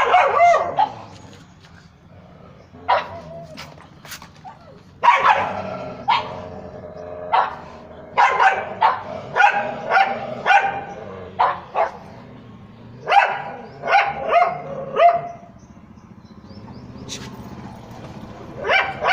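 A pug barking repeatedly in short barks. They come in bouts of several barks with pauses between, then a lull near the end before a last few barks.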